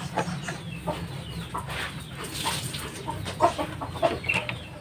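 Scattered short clucking calls of fowl over a steady low hum.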